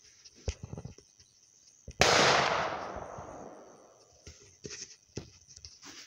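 A single gunshot about two seconds in: a sharp crack followed by a long echoing decay of about two seconds. A few fainter knocks come before and after it.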